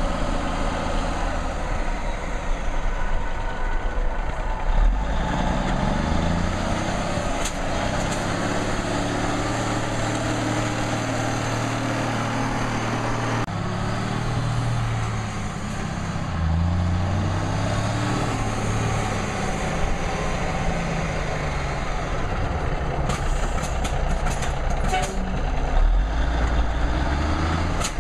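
AM General M920 8x6 military tractor truck's diesel engine running as the truck drives, its pitch climbing and dropping back several times as it accelerates.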